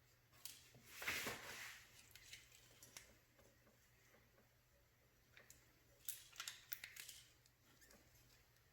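Faint hand-work sounds from rim tape being pressed and smoothed onto a motorcycle wheel rim: a short scraping rustle about a second in, then a few light clicks and scrapes near the six-to-seven-second mark.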